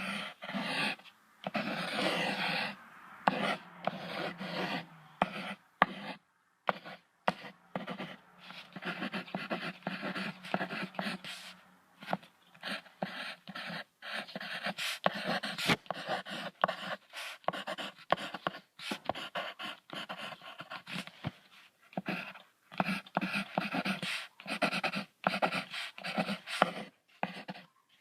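An animal's sounds in many short, irregular bursts separated by brief gaps.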